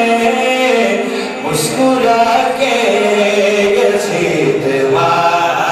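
A man chanting verses into a microphone in a melodic, sung style, with long held notes that glide between pitches.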